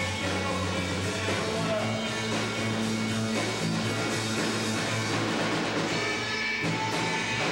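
Rock band playing live: electric guitar and drum kit.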